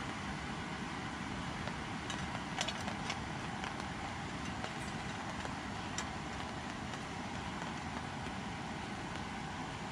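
Steady heavy rain hissing, with a few sharp taps of drops about two to three seconds in and again around six seconds.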